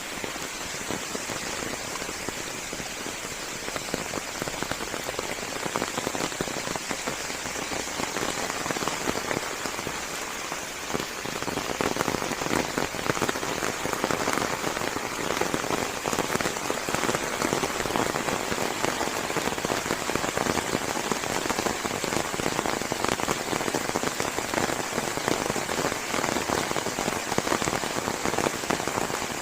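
Steady rain falling on forest leaves, a dense patter of drops that grows a little heavier about twelve seconds in.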